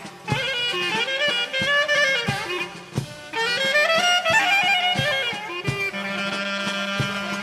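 Greek folk clarinet music with a steady beat: the clarinet plays a fast, ornamented melody, then settles on a long held note over a low drone about six seconds in.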